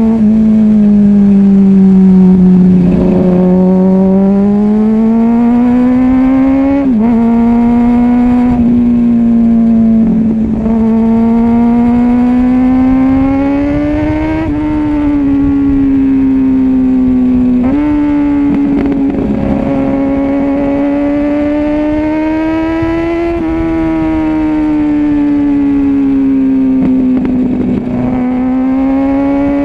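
Kawasaki ZX-6R 636's inline-four engine running loud and strong, its pitch wandering up and down with engine speed, with several sudden jumps in pitch.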